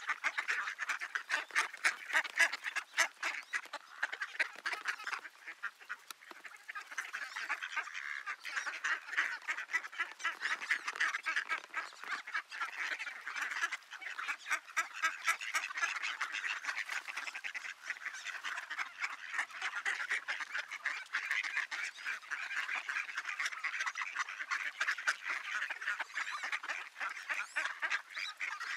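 A flock of mallard ducks quacking and calling together in a dense, continuous chatter.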